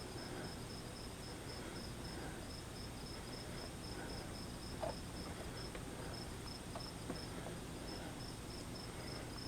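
A cricket chirping steadily in short, evenly spaced high pulses, about four a second, with a faint steady high whine under it and a couple of small clicks.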